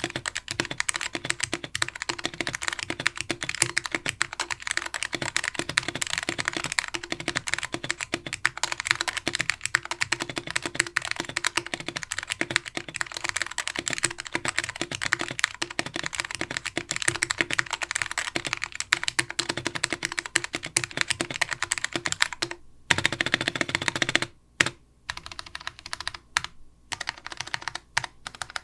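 Mechanical keyboard with Alps SKCM Brown switches, mounted plateless on its PCB, with DCS keycaps, typed on quickly and continuously. About 23 seconds in the typing stops and single modifier keys are pressed one at a time, each a separate clack.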